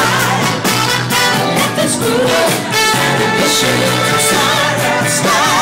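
A band playing upbeat music with a singer's voice over it.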